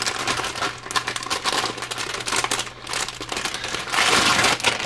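Plastic packaging crinkling and rustling as a motherboard is unpacked by hand, in irregular handling noises that grow busiest shortly before the end.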